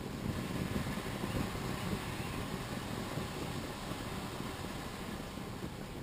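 Gas fire pit flames burning over a ceramic log set, a steady low rumble of burning gas.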